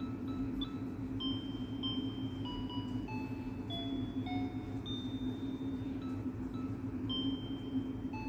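Soft background music: a slow melody of single bell-like tones over a steady low hum.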